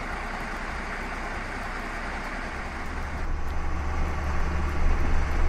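Diesel engine of an IVECO 90-16 truck running. About three seconds in, the sound turns into the louder, steady low drone of the engine heard inside the cab while the truck is driving.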